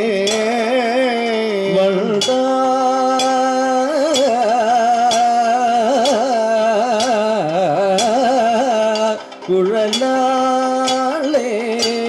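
Kathakali vocal music: a singer holds a melody with heavily ornamented, wavering notes, kept in time by regular metallic strikes of the singers' hand gong and cymbals, a little more than one strike a second. The voice breaks off briefly about nine seconds in, then resumes.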